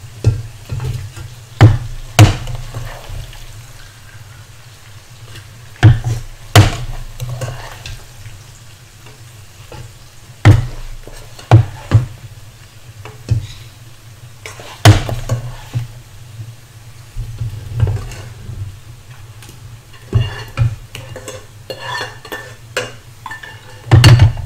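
Cooking utensils scraping and knocking against a non-stick frying pan as fried prawn shells are scooped out, with sharp clanks every few seconds that come thicker near the end.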